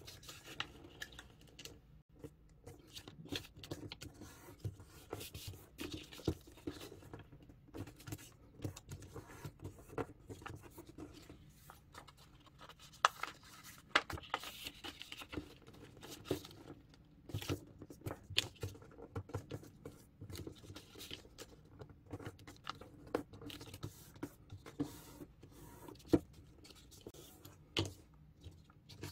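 Half sheet of A4 paper handled and folded by hand: irregular rustling and crinkling as it is creased, with a few louder sharp crackles.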